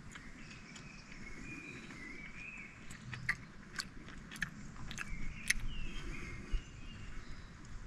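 A person chewing a piece of Turkish delight, with a cluster of sharp, crisp mouth clicks in the middle. A faint wavering call sounds in the background.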